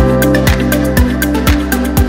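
Electronic house-style background music with a steady kick drum about twice a second and hi-hat ticks between the beats.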